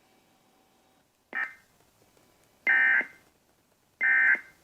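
Emergency Alert System end-of-message data tones: three short, loud bursts of digital warbling about a second and a quarter apart, the first a little quieter, marking the end of the alert broadcast.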